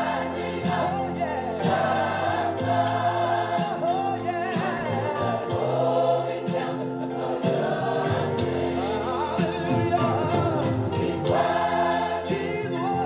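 Gospel choir singing over instrumental backing, with sustained low bass notes beneath the voices.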